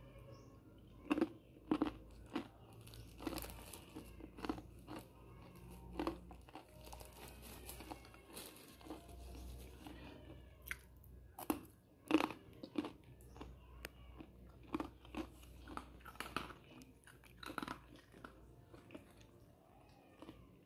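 Someone chewing a crunchy snack close to the microphone: irregular sharp crunches, several in a row at times, the loudest about a second in and again near the middle.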